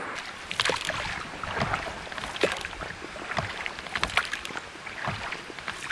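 Inflatable boat being paddled along a creek: irregular paddle splashes in the water and light knocks against the boat.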